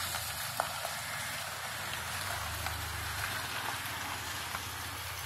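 Black Ford SUV rolling slowly over a gravel drive: a steady hiss of tyres on gravel over a low engine rumble.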